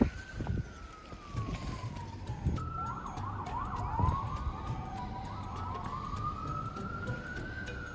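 Emergency vehicle siren wailing in slow rising and falling sweeps. About three seconds in it switches briefly to a fast yelp, then goes back to the slow wail.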